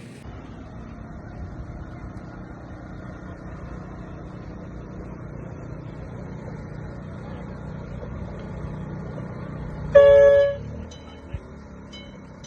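Steady low rumble of a train running, then a short, loud horn blast about ten seconds in.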